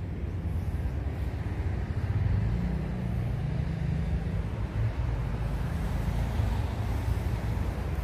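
Steady low outdoor rumble, a continuous background noise with no distinct events.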